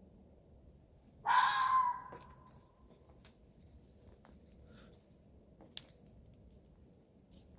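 A single harsh animal call about a second in, lasting under a second: a rough, scratchy onset that settles into a held tone and fades out. A few faint clicks follow.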